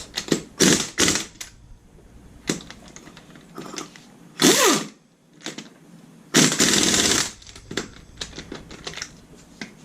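Impact wrench set on low, run in several short rattling bursts to run on and snug ATV lug nuts, the longest burst lasting about a second.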